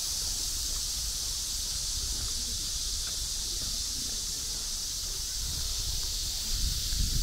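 Steady high-pitched hiss of outdoor ambience over a low rumble, the rumble growing louder and more uneven near the end.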